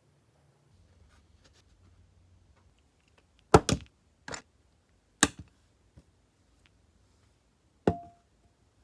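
Sharp metal clicks and clacks of a vintage automatic lighter and its small parts being handled: a few faint ticks, then a quick double click, several single clacks, and a louder one near the end that rings briefly.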